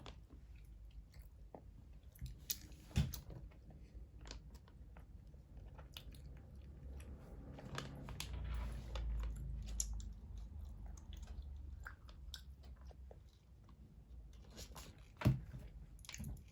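A toddler chewing gummy candies, with soft wet smacks and small scattered clicks and two louder sharp clicks, about three seconds in and near the end.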